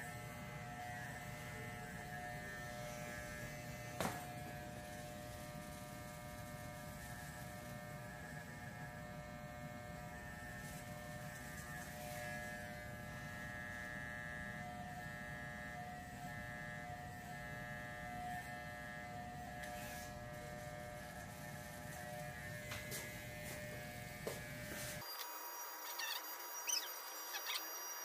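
Corded electric hair clippers running with a steady buzz as they cut hair, with a single sharp click about 4 seconds in. About three seconds before the end the buzz changes abruptly, losing its low end, leaving a thinner sound with faint ticks.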